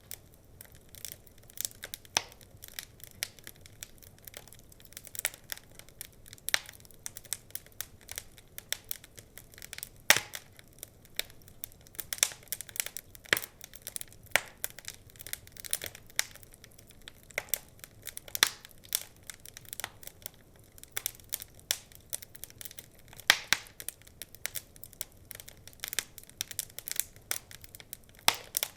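Wood fire crackling, with a dense run of small irregular snaps and pops and a few louder cracks.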